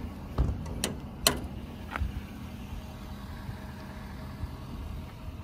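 Service truck engine idling steadily, with four sharp metal clicks and knocks in the first two seconds, the loudest about a second and a half in, as a toolbox compartment door is swung shut and latched.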